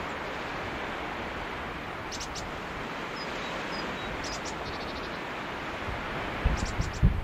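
Steady rush of sea surf washing on the shore. Near the end, wind gusts buffet the microphone.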